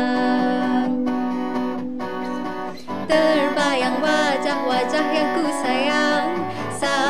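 Acoustic guitar accompaniment with a woman singing a Malay ballad. A held note gives way to a short dip about two seconds in, then her voice comes back about three seconds in with a wavering melody line.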